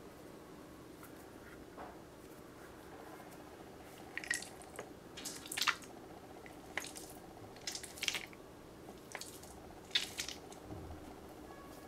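Rubber mesh-net squishy stress ball squeezed and released by hand, giving a series of about six short squeezing noises, starting about four seconds in, over a faint steady hum.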